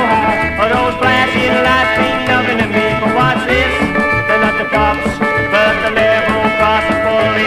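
Rockabilly band recording playing, the full band going at a steady beat.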